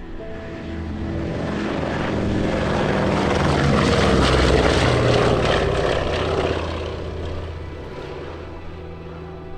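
Propeller aircraft flying over: its engine noise swells to a peak about halfway through and then fades away, the pitch dropping as it passes.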